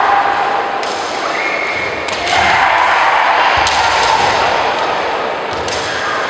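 Kendo bout: bamboo shinai cracking against each other and against armour, about four sharp strikes, over long drawn-out kiai shouts from the fencers. The strike about three and a half seconds in comes with a low thud of a stamping foot on the wooden floor.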